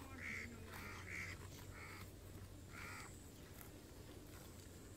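A crow cawing, about five short, harsh caws in the first three seconds.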